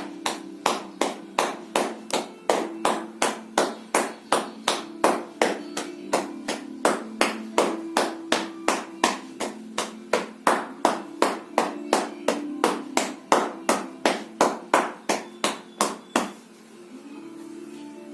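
Rhythmic percussive self-massage: hands slapping or tapping on the body, about three even strikes a second, stopping about 16 seconds in.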